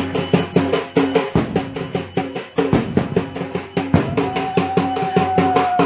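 Fast, steady rhythmic drumming. About four seconds in, a long steady tone joins it and holds until it drops away at the end.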